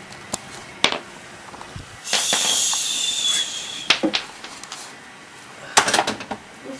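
A few sharp clicks and knocks, with a loud hissing rustle from about two to three and a half seconds in.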